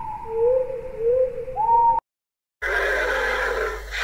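Made-up sea-reptile call: smooth, gliding whistled tones like whale song for about two seconds. After a brief silence, a rough, grating dinosaur call for a horned dinosaur starts and runs on.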